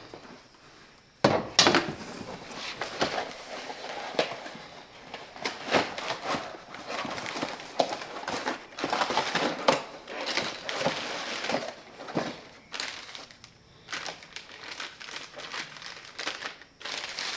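Packaging rustling and crinkling with scattered clinks and knocks as parts of a new multitool are unpacked and handled. A sharper knock comes about a second in.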